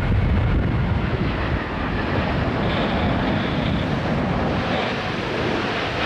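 Lufthansa Airbus A380's four Rolls-Royce Trent 900 jet engines running steadily as the airliner passes low on landing approach. Gusty wind buffets the microphone, heaviest in the first second or so.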